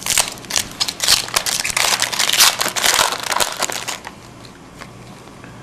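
Wrapper of an Upper Deck Ice hockey card pack crinkling and crackling as it is torn open and handled, many quick crackles that stop about four seconds in.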